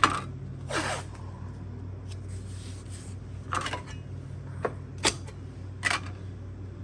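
Blue painter's tape and a putty knife being handled: a few short scrapes and sharp clicks, one scrape near the start sweeping downward in pitch.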